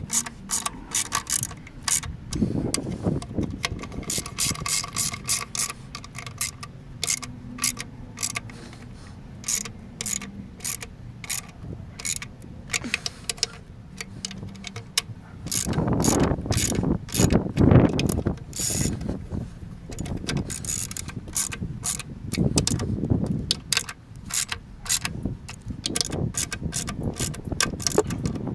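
Hand socket ratchet clicking in quick runs as bolts are driven back in during engine reassembly, with heavier knocks and rattles of tools and parts about halfway through and near the end.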